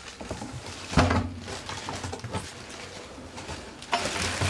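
A gumball machine head and its packaging being handled: a sharp knock about a second in, a few lighter taps, then a rustle of plastic wrapping and cardboard near the end.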